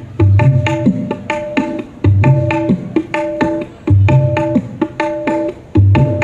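Dangdut gendang played by hand in a repeating groove during a sound check: deep bass strokes, some bending down in pitch, alternating with higher ringing strokes, the pattern coming round about every two seconds.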